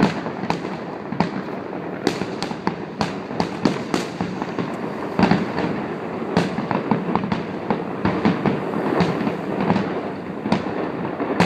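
Fireworks going off in a rapid, continuous barrage: many sharp bangs and crackles, several a second, over a constant rumble.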